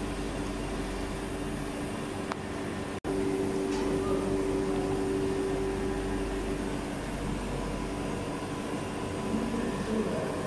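Steady hum of an electric fan running, with two low droning tones; it cuts out for an instant about three seconds in and comes back slightly louder.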